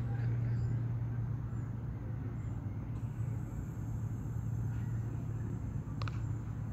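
A steady low rumble runs throughout. Near the end comes a single sharp crack of a cricket bat striking the ball.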